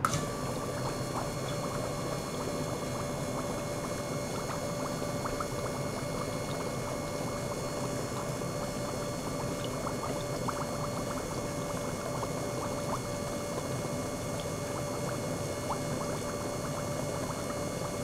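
Small gear pump starting up and running with a steady hum, while water mixed with air from its outlet splashes and bubbles into a stainless steel bowl with many small irregular pops.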